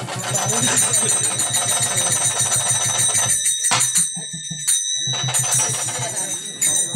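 Bengali folk-theatre ensemble of harmonium and drum, with jingling small cymbals, playing a fast rhythmic dance tune. The music breaks off for about two seconds around the middle, with a single sharp strike, then starts up again.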